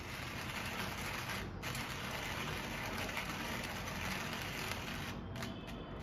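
Hand-cranked coffee grinder grinding coffee beans: a continuous gritty crunching with a brief break about a second and a half in. A few sharp clicks near the end.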